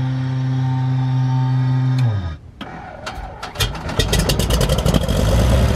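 The fuel-injected 300 hp Continental IO-520 engine of a modified Cessna 182 runs with a steady drone that dies away about two seconds in. About a second later it starts with a quick string of sputtering pops, then catches and runs roughly.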